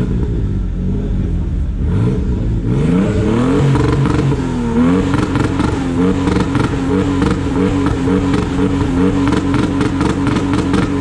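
Toyota Supra Mk4 engine idling, then revved up about three seconds in, dipping once and held at a steady high rev for the rest, with a fast crackling running through it.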